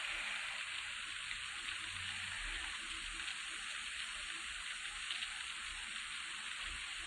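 Steady faint hiss, with no distinct event standing out.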